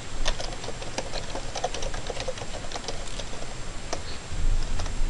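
Computer keyboard typing: a quick, irregular run of keystroke clicks as a short phrase is typed.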